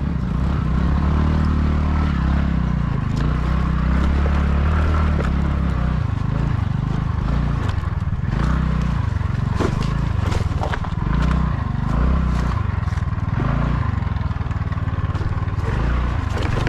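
Motorcycle engine running at low revs, its level swelling and easing, with a few sharp knocks and scrapes from the bike on rough ground.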